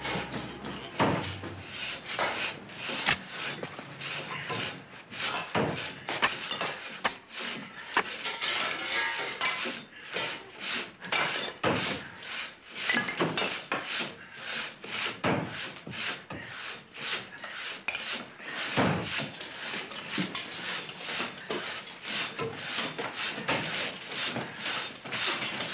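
Shovels digging and scraping through broken plaster and wood rubble, with irregular knocks and scrapes throughout.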